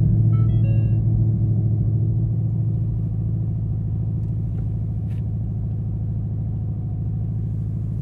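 Ford Mustang Dark Horse's 5.0-litre V8 idling just after start-up, heard from inside the cabin, its level easing down a little over the first few seconds and then running steady. A short chime of a few notes from the car sounds near the start.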